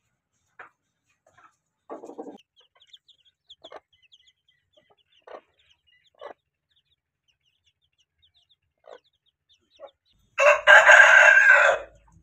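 Chickens: short clucks and a run of faint, high chick peeps, then a rooster crows loudly near the end, one crow lasting about a second and a half.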